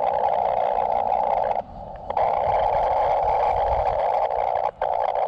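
Power line interference heard through an Elecraft KX2 HF transceiver's speaker on 40 metres: a steady rushing noise squeezed into a narrow band of audio, which drops out for about half a second near the middle and again for an instant near the end. The noise is from the overhead power lines and is worst under them; the owner places its source on a pole along the line.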